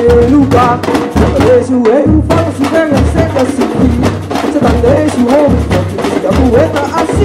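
Samba batucada band playing: surdo bass drums keep a steady beat under snare drums and a rack shaker, with a woman singing lead through a microphone. The higher drums stop for a moment about two seconds in.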